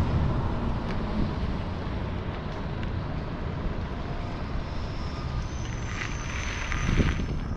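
Steady wind rush on the microphone and street traffic noise while riding an e-bike, with no clear single event.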